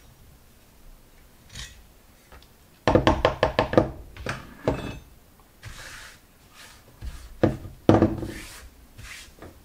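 Metal hand tools and a cast aluminium carburettor body handled on a workbench. About three seconds in there is a quick run of clicking and rattling as the hand reamer is worked out of the throttle body. Near the end come a few solid knocks as the carburettor body and the reamer are set down on the cutting mat.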